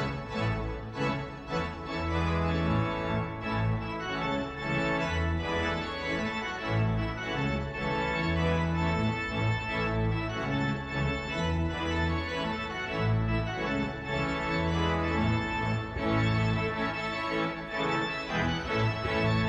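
Pipe organ playing full sustained chords over deep bass notes, the chords changing every second or so.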